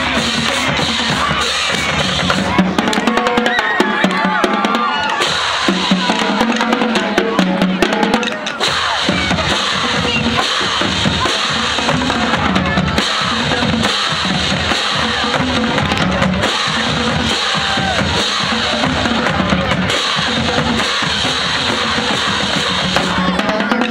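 Marching drumline playing a fast cadence: snare drums and multi-drum tenors with crash cymbals, backed by bass drums.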